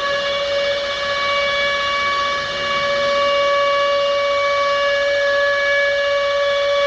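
Civil defense siren sounding a long, steady tone at one pitch, just after winding up.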